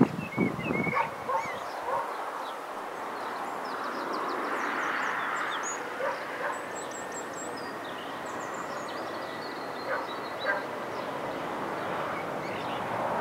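Small birds chirping in short, quick calls, over the faint steady hiss and thin high whine of the distant Boeing 737-800's CFM56 jet engines spooling up for the takeoff roll.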